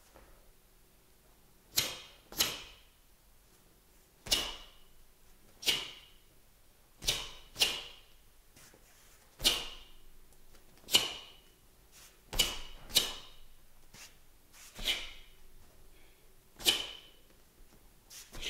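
Sharp snaps of a taekwon-do uniform's sleeves and jacket with each punch and block, about a dozen, some coming in quick pairs about half a second apart.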